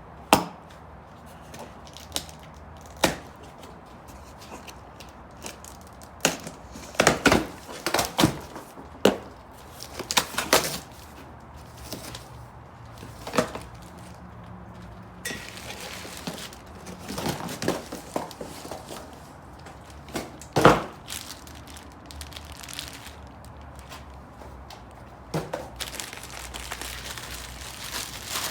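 Cardboard shipping box being opened and its packaging handled, with irregular sharp knocks and taps and stretches of crinkling rustle.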